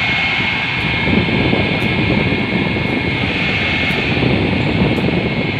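Evaporator blower motor with twin squirrel-cage fans running on battery power after a repair: a steady rush of air with a steady high whine.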